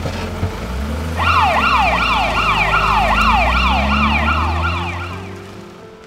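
Hyundai Starex ambulance's siren sounding a fast yelp, about three sweeps a second, starting about a second in over the van's low engine rumble and fading near the end as the ambulance pulls away.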